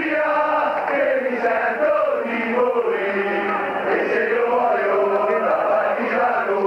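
Large crowd of football ultras on the terraces chanting a sung melody in unison, many male voices holding long rising and falling notes.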